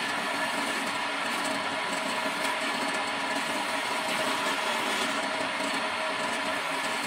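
Homemade wood lathe running steadily while a hand-held chisel cuts along a spinning wooden spindle, a continuous even hiss of wood being shaved over the motor's whir.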